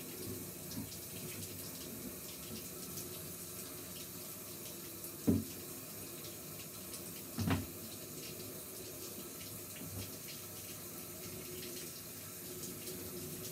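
Water running steadily from a tap, with two brief knocks, the first about five seconds in and the second a couple of seconds later.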